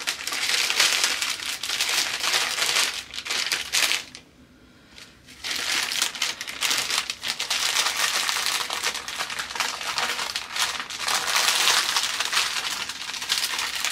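Clear plastic bags of diamond-painting drills crinkling loudly as they are folded and handled, with a brief pause about four seconds in.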